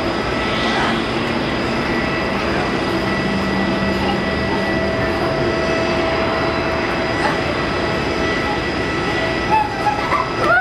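Jet engines of a Boeing 777-200ER at taxi power: a steady rumble with a high, even whine. Voices are heard briefly near the end.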